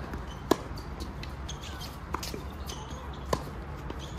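A few sharp, separate knocks of tennis balls on a hard court (bounces and racket strikes), the loudest about half a second in and others about two and three seconds in, over a steady low outdoor rumble.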